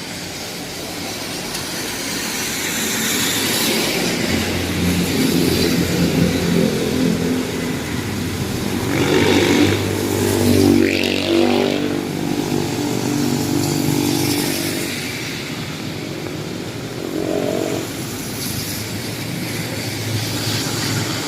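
Road traffic passing close by: motorcycle and other vehicle engines swell and fade as they go past, loudest around the middle.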